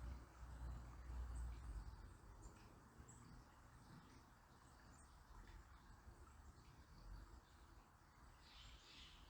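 Faint outdoor nature ambience: a soft low rumble and hiss, with a few faint, high bird chirps, clustered near the end.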